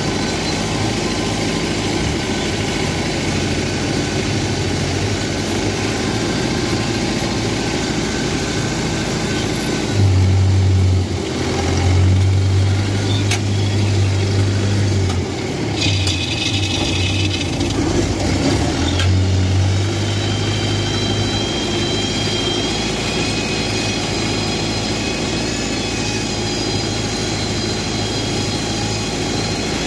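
Engine of a farm tractor hauling a load of rice sacks, running steadily as it drives along a dirt road. Its low drone grows louder from about ten seconds in until about twenty seconds in.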